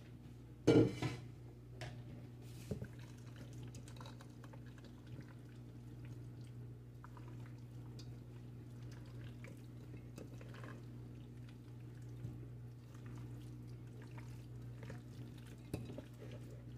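A silicone spatula folds boiled potato cubes into a mayonnaise dressing in a stainless steel bowl, making soft wet squishing sounds with occasional light knocks against the metal. There is a louder clatter about a second in.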